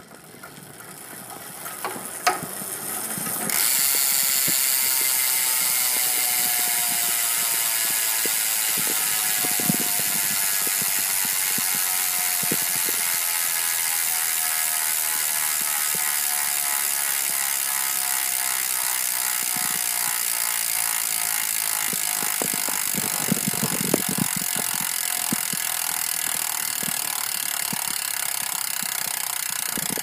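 Hope Pro 2 Evo rear hub's freehub pawls clicking in a loud, fast ratchet buzz as the rear wheel spins freely backwards against the pawls. The buzz builds over the first few seconds, then slowly drops in rate as the wheel loses speed, with a few soft knocks about three-quarters of the way through.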